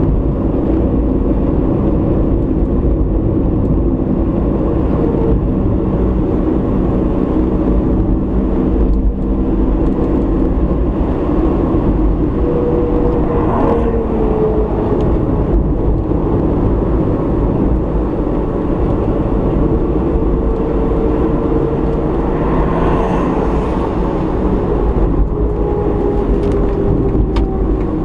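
A car driving, recorded by a dashboard camera: steady engine and road rumble, with the engine's pitch drifting a little up and down as the speed changes.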